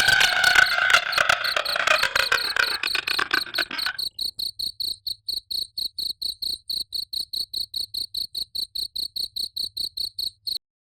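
Cricket chirping steadily, about four to five high chirps a second. Under it for the first few seconds a wailing female ghost cry from the horror sound effect fades out and stops about four seconds in, leaving the cricket alone.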